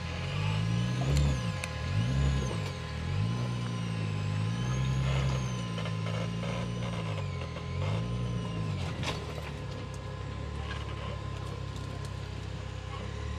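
Rock-crawler buggy's engine revving up and down again and again in short bursts as the buggy climbs over boulders, then holding a steadier, lower run from about nine seconds in. A sharp knock comes about nine seconds in.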